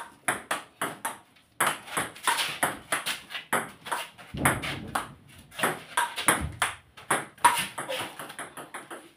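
Table tennis rally: the ball clicks back and forth off the paddles and the table in quick succession, with a few duller thumps among the clicks. The clicking stops near the end as the point finishes.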